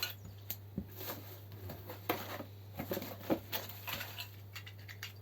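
Small plastic model-railway trackside pieces and their packaging being handled, giving irregular light clicks, taps and rustles, with a few sharper knocks. A steady low hum runs underneath.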